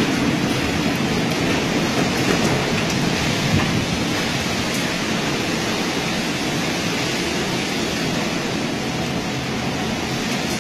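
Storm wind and heavy rain from a typhoon, a loud, steady rushing noise without a break.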